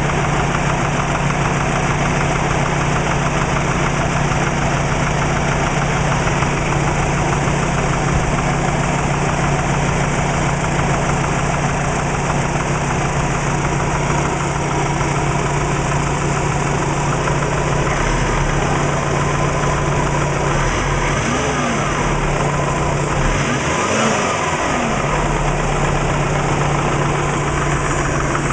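Subaru WRX turbocharged flat-four engine idling steadily with a repeated knock, which the owner takes for piston slap. The idle wavers briefly about three quarters of the way through.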